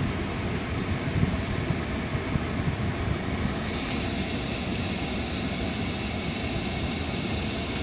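Steady low rumble and hiss inside the cabin of a 2018 Mercedes-Benz S560 idling with its 4.0-litre biturbo V8 while the suspension lift lowers the car; the hiss brightens a little about halfway through.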